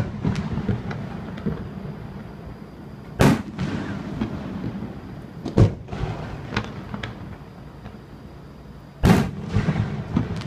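Aerial firework shells bursting: three loud booms, about three, five and a half, and nine seconds in, each with a short echoing tail. Smaller pops and crackles come in between.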